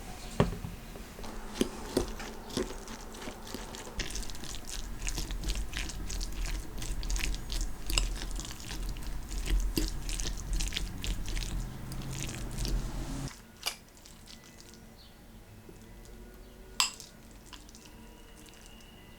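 Kitchen utensil clicking and scraping against a bowl in many quick irregular strokes, as in food preparation. It stops abruptly about 13 seconds in, followed by a couple of single clicks.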